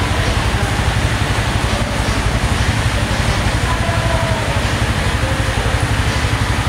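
Underbone motorcycle engine running steadily on a roller test stand, its rear wheel driving the rollers during a running test, with a rapid low pulsing.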